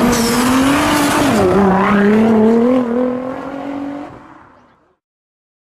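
Car engine held at high revs during a burnout, its pitch wavering and dipping once about a second and a half in, with a hiss over it. It fades out near the end.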